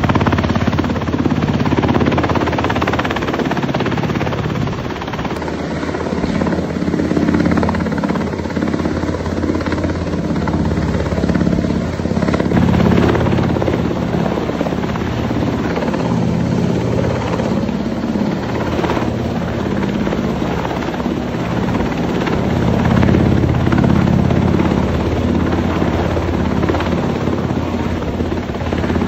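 U.S. Coast Guard MH-60 Jayhawk helicopter flying low overhead: a steady rotor beat over the running turbine engines, swelling and easing slightly as it moves.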